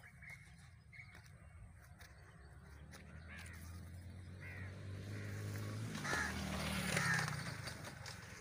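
Crows cawing several times, loudest about six to seven seconds in, over the rustle of dense brush and leaves being pushed through.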